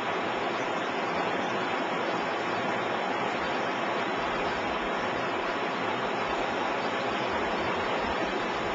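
A shallow river running steadily, a continuous rush of water over the shallows.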